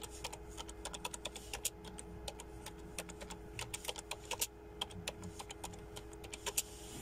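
Typing on a smartphone's touchscreen: quick, irregular taps, several a second, as a comment reply is written.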